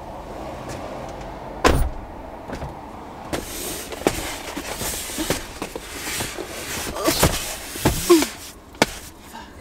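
Large flat-pack cardboard boxes being shoved into a car's back seat: cardboard scraping and sliding against the seats, with a thump a little under two seconds in and several knocks near the end.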